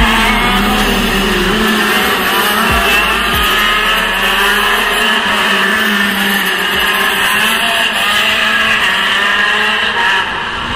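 Several racing kart engines running hard, their pitch rising and falling as the karts accelerate and slow through the corners.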